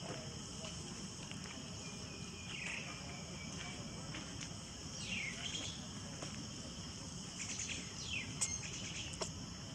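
Steady, high-pitched insect chorus droning throughout, with a few short high calls that slide down in pitch, and two sharp clicks near the end.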